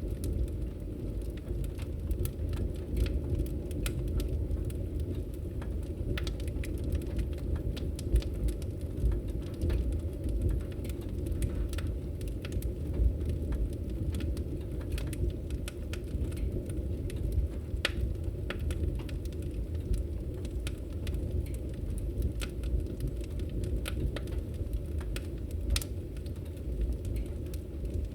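Wood fire burning in a fireplace: a steady low rumble of the flames with frequent sharp, irregular crackles and pops from the burning firewood.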